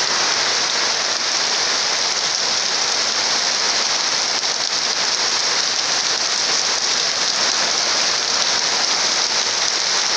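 Heavy rain pouring steadily on sheet-metal (lámina) roofs, a dense, even rush with no let-up.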